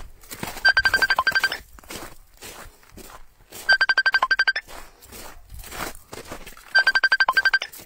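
Smartphone ringing with an incoming Messenger call: three bursts of rapid, high-pitched trilling beeps, each under a second long, about three seconds apart. Footsteps on the ground can be heard between the bursts.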